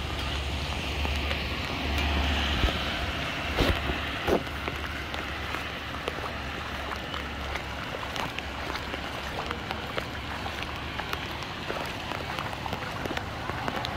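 Light rain falling on a flooded road and muddy runoff water: a steady hiss dotted with many small drop ticks. A low rumble runs under the first few seconds, with a couple of louder knocks about four seconds in.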